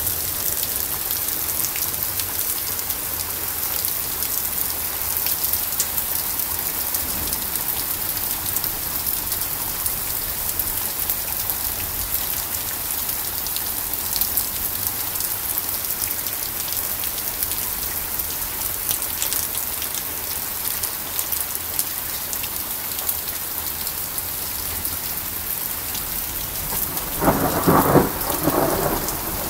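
Heavy rain pouring down and splashing on pavement and grass: a steady hiss with many fine drop strikes. Near the end a brief, louder pitched sound cuts through the rain.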